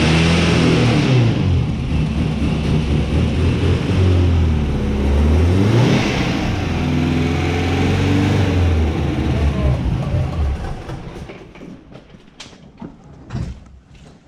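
Subaru BRAT's flat-four engine running and being revved, its pitch falling and climbing back about halfway through. It stops about ten seconds in, and a few sharp knocks follow.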